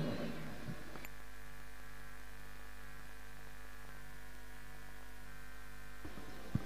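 Steady electrical hum from a public-address system with an open microphone, a low tone in it pulsing on and off. Near the end come two or three soft knocks as the microphone and its stand are handled.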